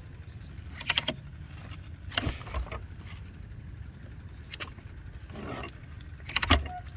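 Scattered mechanical clicks and knocks, with a louder thump about six and a half seconds in, from the kick-start lever of a 2010 Yamaha YZ450F being worked by foot to find top dead center before a kick; the engine is not running.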